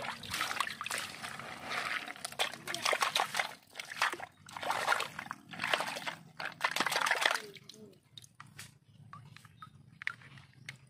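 Shallow muddy water sloshing and splashing as a hand swishes a small plastic toy excavator through it to rinse it, in several bursts that die down about eight seconds in.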